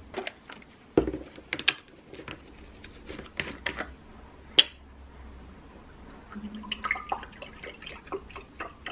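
Light knocks and clicks of tableware and a milk carton being handled on a table, one sharp click about halfway through. Near the end, milk pouring from a carton into a glass.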